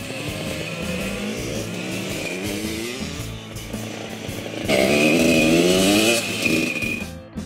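1983 Husqvarna WR250 two-stroke dirt bike being ridden, its engine revving up and down. It gets much louder for a second or so about five seconds in, then fades away near the end.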